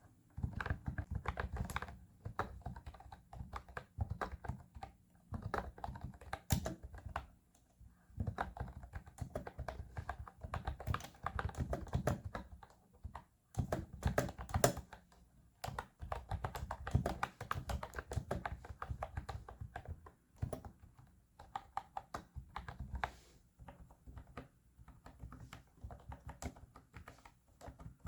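Typing on a MOFII Milk Tea wireless keyboard: rapid key clicks in runs of several seconds, broken by short pauses.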